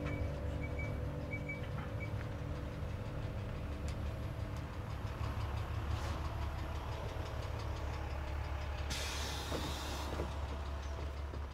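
City bus idling with a steady low engine rumble. About nine seconds in there is a loud one-second burst of compressed-air hiss.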